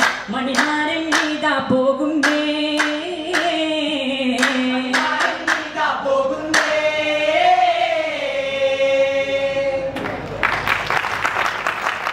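Vattappattu troupe singing a Mappila song in unison, punctuated by sharp rhythmic hand claps, the song ending on one long held note. Audience applause breaks out about ten seconds in.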